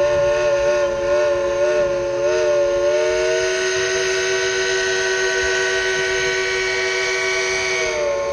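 Steam whistle of Baldwin steam locomotive No. 192, held in one long, loud multi-tone chord as the engineer plays it. The pitch wavers at first, slides up a little about three seconds in, and drops off near the end as the valve closes.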